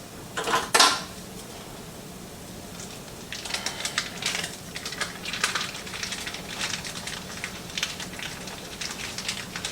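Kitchen handling sounds as ground beef is got into a pan: a brief loud rustle or scrape about half a second in, then irregular light clicks and clinks of utensils and cookware.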